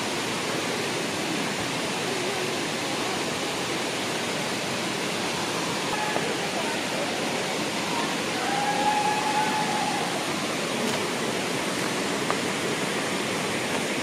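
Steady rush of water flowing over rocks in a stream at a waterfall.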